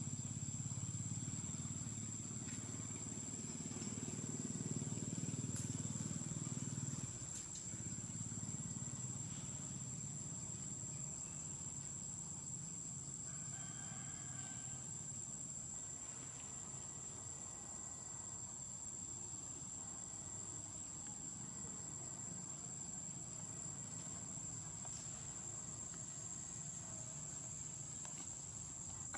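Insects droning with one steady high-pitched tone, over a low rumble that drops away about seven seconds in. A brief faint call sounds about halfway through.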